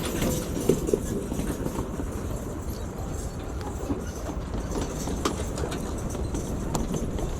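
Golf shots on a practice range: a few sharp clicks of club heads striking balls, the loudest about a second in, over a steady low rumble of range ambience.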